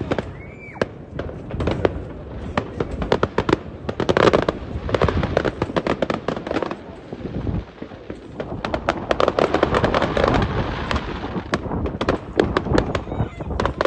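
New Year's Eve fireworks and firecrackers going off in a dense, unbroken barrage of bangs and crackling, with a brief whistle about half a second in.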